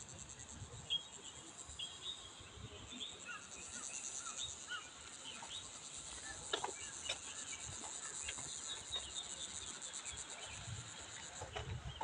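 A steady, high-pitched pulsing buzz of insects in the surrounding woodland, with birds chirping short rising and falling notes over it and a couple of soft clicks around the middle.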